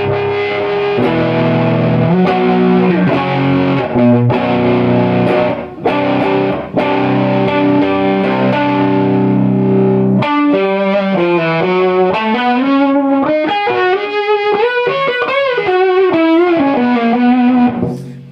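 Electric guitar played through a bench-wired compressor/fuzz/sustainer circuit, with a fuzzy, distorted tone. Low chords and notes are held long for about the first ten seconds, then a single-note lead line with bends and vibrato, notes sustained, stopping near the end.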